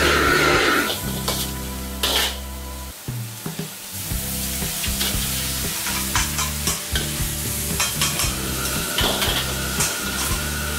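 Bean sprouts stir-frying in a wok: a steady sizzle with the metal ladle scraping and clinking against the wok, the clinks coming thick and fast in the second half.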